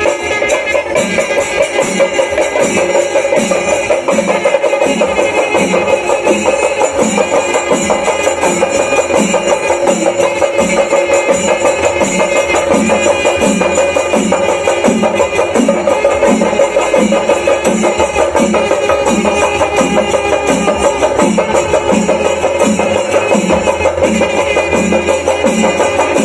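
Percussion-led music with a steady, even drum beat, a little under two beats a second, over a sustained band of held tones.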